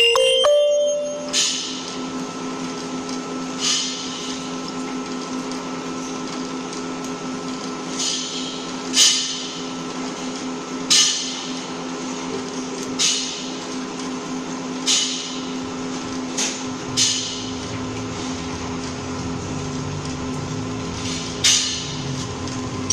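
Automated argon-arc (TIG) welding machine at work: a steady electrical hum, with about ten short hissing bursts at irregular intervals of one to four seconds.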